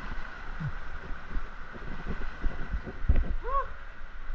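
Steady rush of floodwater through a river cave, with irregular low thumps and knocks. A short voice sound rises and falls about three and a half seconds in.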